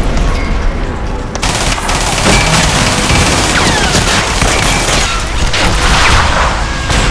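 Dense film gunfire from added sound effects: a rapid, continuous mix of gunshots and automatic fire, with explosion blasts among them and music underneath.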